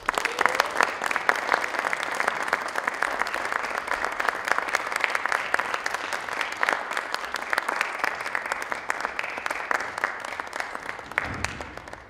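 Audience applauding, many people clapping at once, dying away near the end.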